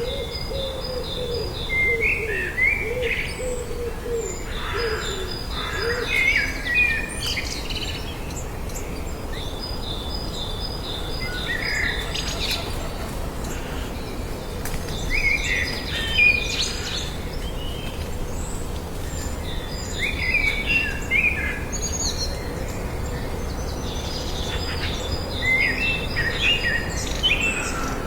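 Several songbirds singing and chirping, with bursts of quick high notes that come back every few seconds, over a steady low rumble.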